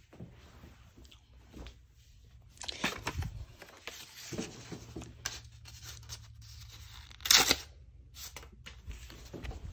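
Paper being torn and handled by hand: irregular rustling and ripping, loudest in a short burst about seven seconds in.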